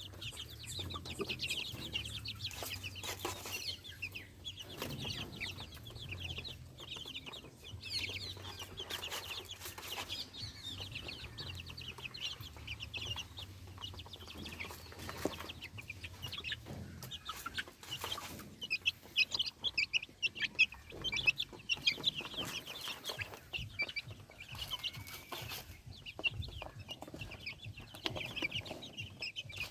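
A large group of Peruvidai naatu kozhi chicks cheeping without pause, many high peeps overlapping. A low steady hum sits underneath until a little past halfway, and there are a few short knocks.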